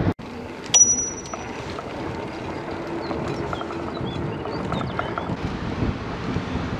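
Wind rushing over the microphone of a camera on a moving bicycle, with the steady noise of the ride underneath. A sharp metallic ping with a brief high ring comes just under a second in.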